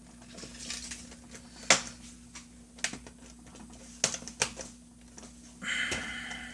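Plastic laptop casing parts being lined up and pressed together by hand: several sharp separate clicks and taps, with a short scraping creak of plastic near the end.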